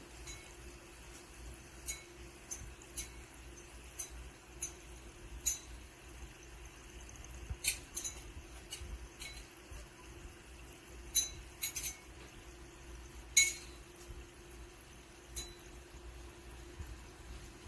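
Light, irregular clinks on glass, a dozen or so scattered, the loudest about two-thirds of the way through. They come from a fizzing baking soda and citric acid mix in water, whose bubbles lift decorative stones that knock against the glass.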